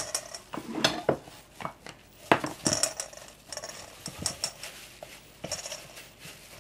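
Stainless steel mixing bowl knocking and clanking against the counter in irregular bumps with a brief metallic ring, as gloved hands knead ground beef into a ball inside it. The loudest knock comes a little over two seconds in.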